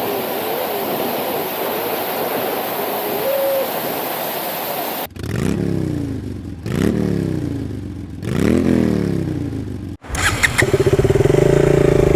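Rushing waterfall water for about five seconds, then, after a sudden cut, a motorcycle engine revving three times, each rev rising in pitch. Near the end another cut brings the motorcycle running at a loud steady note.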